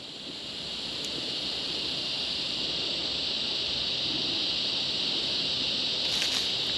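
A steady, high-pitched insect drone, slowly growing louder.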